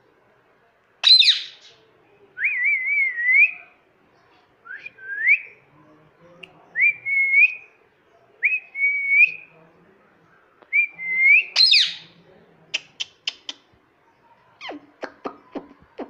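Indian ringneck parakeet whistling a string of about five short whistles that rise and waver, with a sharp squawk about a second in and another near 12 seconds. A quick run of clicks follows in the last few seconds.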